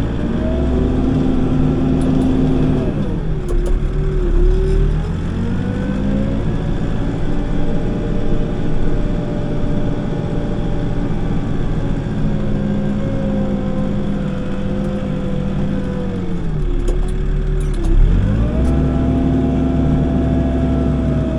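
Backhoe's diesel engine working under hydraulic load while digging, revving up and down: it climbs at the start, drops about three seconds in, rises again a couple of seconds later, dips about sixteen seconds in and picks up again near the end.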